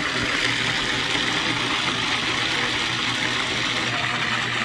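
Food processor running continuously, its blade puréeing a watery mix of softened dried chiles, garlic and soaking water. A steady low motor hum sits under an even whir.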